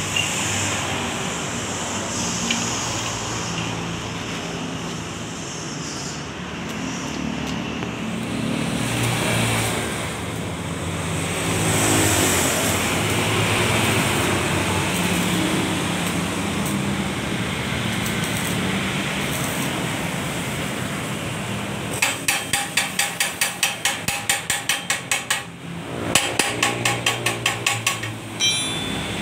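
Stick welder's arc crackling and hissing steadily as a bead is laid on a leaking motorcycle muffler. After about twenty seconds the arc stops and a chipping hammer knocks slag off the weld, about four quick blows a second in two runs with a short pause between, the steel muffler ringing, and one last knock near the end.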